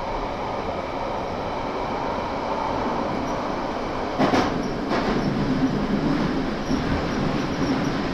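London Underground 1992 Tube Stock train running in a Central line tunnel: a steady noise of wheels on rail, with a faint whine from its chopper-controlled traction motors early on. About halfway through come two sharp knocks under a second apart as the wheels cross rail joints.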